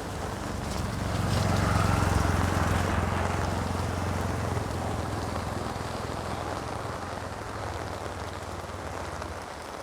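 An auto-rickshaw's engine running as it passes, loudest about two seconds in and then slowly fading, over steady rain.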